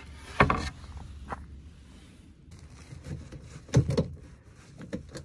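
Handling knocks and clatter: a loud knock as a hatch lid in the boat deck is opened, and later a plastic and metal clatter as a battery charger's clamp is clipped onto a battery terminal.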